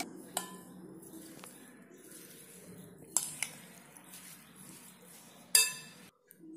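A metal spoon clinking against a glass bowl while stirring dry red flattened rice with cardamom powder: a few scattered clinks, the loudest about five and a half seconds in, over a faint low hum.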